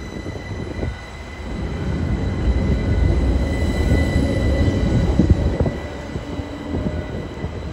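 Gothenburg M32 low-floor tram moving past close by: a steady electric whine from its traction equipment over the rumble of its wheels on the rails. The rumble grows louder about two seconds in and eases off near the end.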